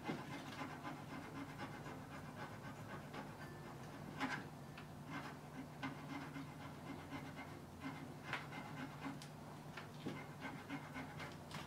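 A soft metal bar scraped across the teeth of a file to clean them, in short faint strokes at uneven intervals, over a steady low hum.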